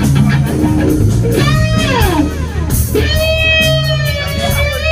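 Electric guitar lead played over a bass line. About a second and a half in, one note slides steeply down in pitch. From about three seconds in, a long note is held with wavering vibrato.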